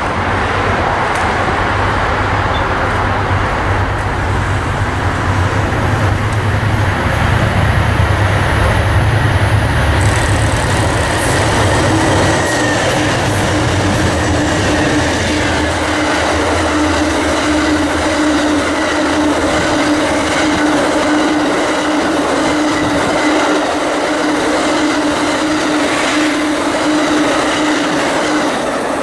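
Amtrak passenger train passing, led by an Amtrak P42 and two CDTX Dash 8 diesel locomotives: a heavy low engine rumble through the first half, then the double-deck cars rolling by with wheels clicking over rail joints and a steady hum from about twelve seconds in.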